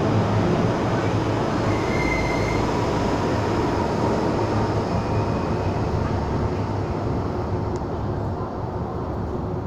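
MTR M-Train electric multiple unit pulling out of an underground platform, its wheel and running noise passing close by and slowly fading as the last car leaves.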